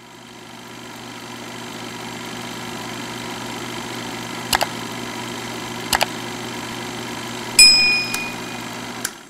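Subscribe-animation sound effects over a steady hum that fades in: two quick double clicks like a mouse button, then a bright bell ding near the end, the loudest sound, followed by a couple of single clicks.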